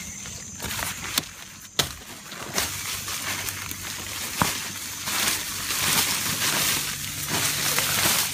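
Rustling of leaves and soil with a few sharp knocks, from digging taro plants out of the ground.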